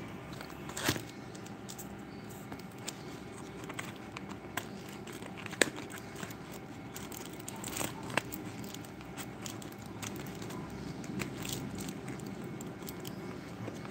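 Steady low background hum with scattered small clicks and crackles, one sharper click about midway.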